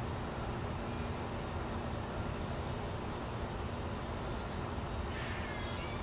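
Steady low outdoor background noise with a few faint, short, high chirps from small songbirds, and a brief burst of twittering about five seconds in.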